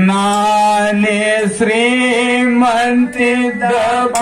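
A man singing a Kannada dollina pada folk song in long held notes, with no drum playing.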